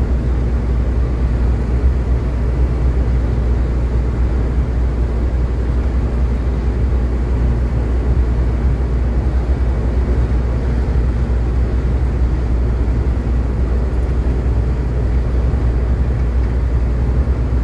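A vehicle driving steadily on an asphalt road: a constant low rumble of engine and tyre noise that does not change.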